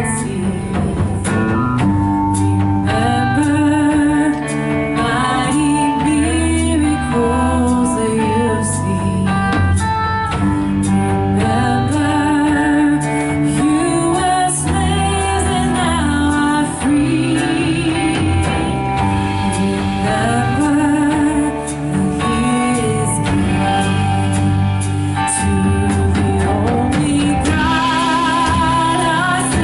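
Church worship band playing a song, with a vocalist singing over the instruments.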